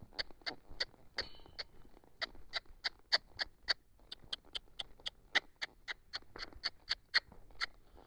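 A rider clucking to a horse with his tongue, a long run of sharp, even clicks at about four a second, urging her to speed up.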